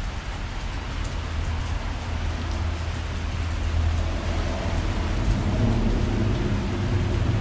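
Steady rain falling, an even hiss of drops with a low rumble underneath.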